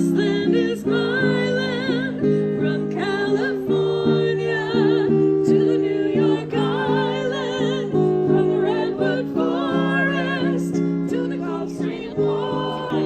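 Music: a singing voice with vibrato over held instrumental chords that change every second or so.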